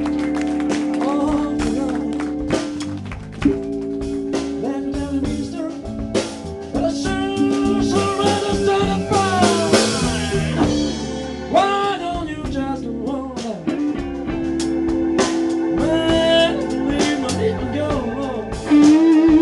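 Live blues-rock band playing, with saxophone, electric bass and drum kit. Long held notes with bends sit over a steady drum beat.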